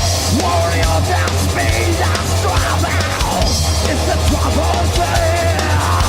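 Thrash metal band playing loud: electric guitars over a drum kit, dense and continuous.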